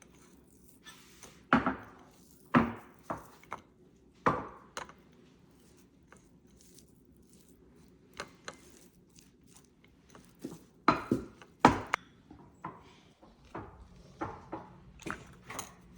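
A pet chewing and crunching food: irregular sharp crunches and clicks, with a few louder ones in clusters.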